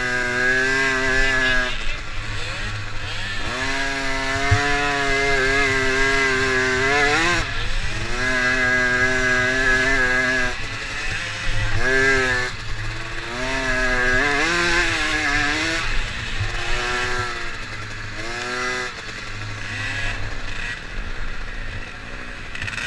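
Small racing engine of a kids' off-road machine, heard from on board at high revs under load. The throttle keeps closing and reopening, so the engine note drops away and then climbs sharply again several times, over a steady rumble of the rough ground and wind.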